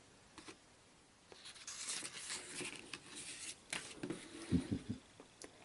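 Paperback picture book handled and closed, its pages rustling faintly, then a click and a few soft knocks as it is set down on a wooden table.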